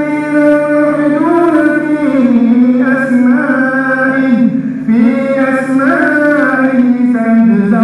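An imam reciting the Quran aloud in melodic chant: one male voice holding long, ornamented notes that glide up and down, with a short break for breath about five seconds in.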